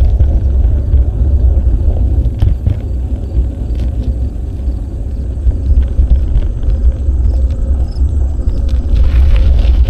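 Wind buffeting an action camera's microphone during a bicycle ride: a loud, steady low rumble, with a few light clicks.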